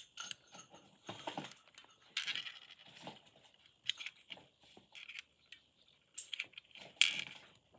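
Small clicks and scrapes of the plastic parts and a small screw of a Logitech M185 wireless mouse being handled and fitted back together, with one sharper click about seven seconds in.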